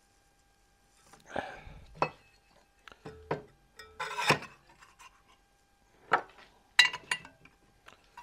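Irregular metal clinks, knocks and rustling as a bonded aluminium test piece is handled and fitted into a steel jig in a bench vice, loudest about four seconds in and again near seven seconds.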